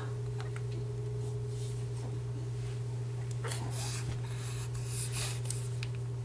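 A steady low hum throughout, with a baby's faint, short breathy sounds twice, about three and a half and five seconds in.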